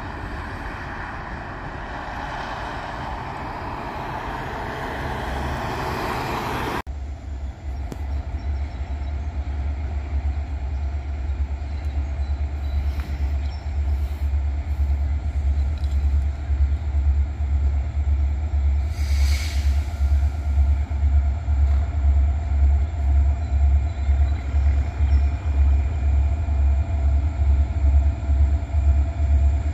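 Reading & Northern 4-8-4 steam locomotive 2102 hauling a train of 100 empty cars. A broad rumble gives way, after a sudden change about seven seconds in, to a fast, even low pulsing that grows steadily louder.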